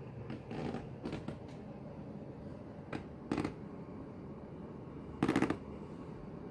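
Handling and movement noise: a few short knocks and scrapes, the loudest lasting about half a second near the end.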